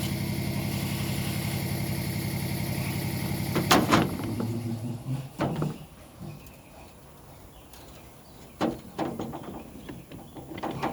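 A steady motor hum stops about four seconds in. After that come sharp metallic clanks and knocks as parts of a Turbo 400 automatic transmission are handled during teardown.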